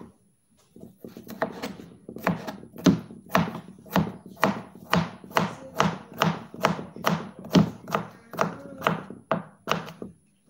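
Kitchen knife chopping peeled cucumber on a cutting board: a steady run of sharp knocks, about two to three a second, starting about a second in.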